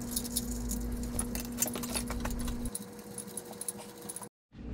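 Small parts and packaging being handled, with scattered light clinks and rattles, over a steady hum that stops a little past halfway through. The sound drops out completely for a moment near the end.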